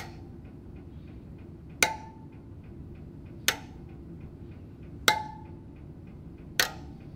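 Open-end spoke wrench tapping the steel spokes of an Apollo RXF pit bike's spoked front wheel: five sharp taps, about one every second and a half. Some taps ring with a short clear note and others sound dull. This is a tap test of spoke tension, where a ringing spoke is correctly tight and a dull one is too loose.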